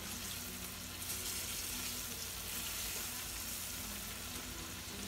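Flour-coated beef cube steaks frying in hot oil in a skillet: a steady sizzle that gets a little louder about a second in as the steaks are turned over with a fork to cook the second side.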